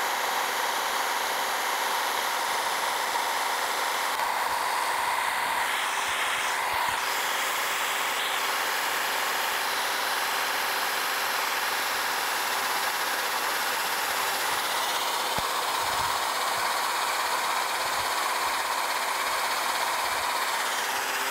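Wells-Index vertical milling machine running with an end mill cutting a slot in steel: a steady cutting noise over a constant machine tone.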